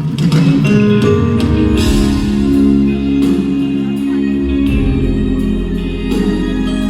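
Live band music that comes in loudly all at once: sustained chords with guitar and scattered percussion hits.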